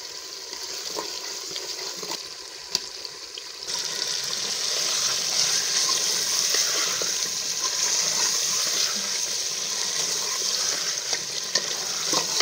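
Chicken pieces sizzling in a pot of hot ghee and tomato masala as they are stirred, the sizzle jumping much louder about four seconds in and then holding steady. A few light clicks of the metal ladle against the pot.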